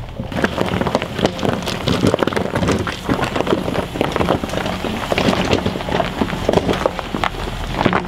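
Range Rover Sport's tyres crunching and crackling over loose rocks and gravel at crawling speed, with a dense run of small irregular cracks and pops over the low, steady hum of the engine.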